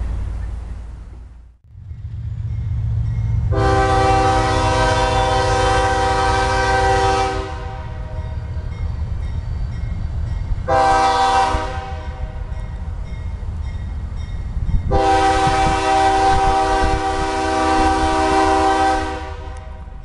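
Freight cars rolling past, fading out until a sudden cut about a second and a half in. Then a diesel locomotive rumbles and sounds its multi-chime air horn three times: a long blast, a short one, and another long one.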